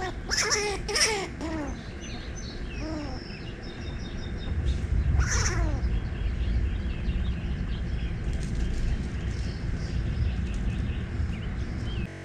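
A few short animal calls, each falling in pitch, in the first six seconds, over a low steady rumble that grows louder about four and a half seconds in.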